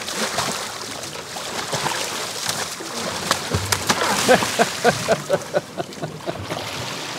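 Water splashing and sloshing against the boat's side as a hooked tope shark thrashes at the surface, with many sharp splashes. About four seconds in comes a quick run of short pitched sounds.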